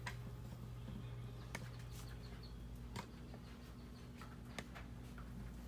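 Quiet room with a steady low hum and a few faint, scattered clicks.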